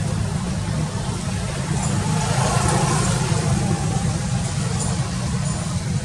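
Steady low rumble with a faint hiss above it, like a motor running, even in loudness throughout.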